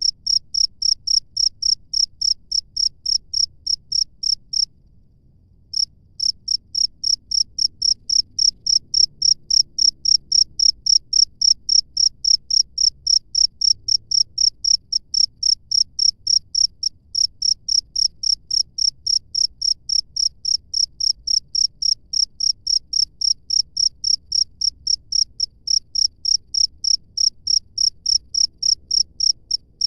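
A cricket chirping loudly in a steady rhythm, about three high chirps a second. It breaks off for about a second near the fifth second, then resumes.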